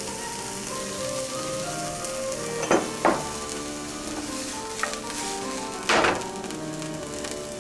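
Julienned vegetables sizzling in hot oil in a nonstick frying pan as they stir-fry. About a third of the way in there are two quick knocks, and later a louder, longer clatter as the pan is handled.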